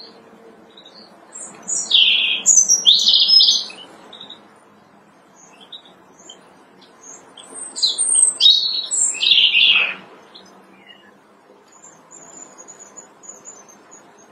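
European robin singing: two bursts of high, thin warbling phrases, the first about two seconds long and the second about three, with scattered softer notes between them and a faint high twittering near the end.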